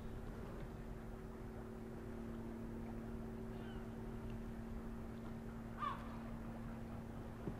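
A steady low machinery hum with wind noise. A bird calls briefly twice, the louder call about six seconds in.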